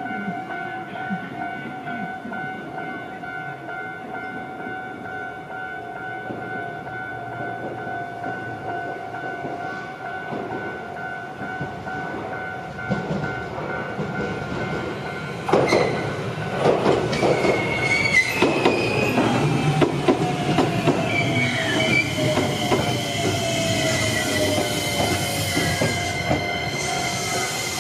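Japanese level-crossing warning bell ringing steadily. About halfway through, a Shizuoka Railway A3000 series electric train arrives and passes, its wheels clacking over the rail joints, with a slowly falling whine and a high wheel squeal near the end.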